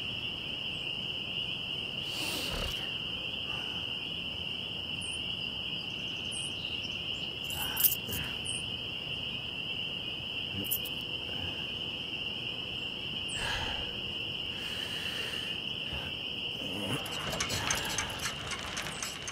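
Crickets chirring in one steady, high, unbroken tone: the stock 'awkward silence' cue in cartoons. A few short rustles and clicks from the character's movements sit on top of it, the sharpest about eight seconds in, and a quick run of ticks comes near the end.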